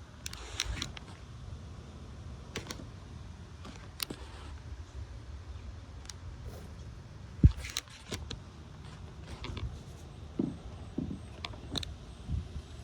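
Wind rumbling on the microphone, with scattered light clicks and taps and one sharp thump about seven seconds in.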